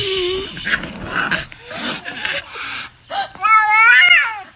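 Noisy scraping and clicks in the first second or so, then a pet's long, loud, wavering cry about three and a half seconds in, bending up and down in pitch for nearly a second.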